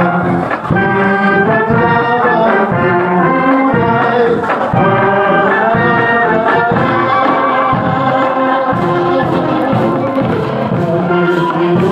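Brass band playing a tune, held notes changing in quick steps, with a beat of sharp percussion hits coming in over the last few seconds.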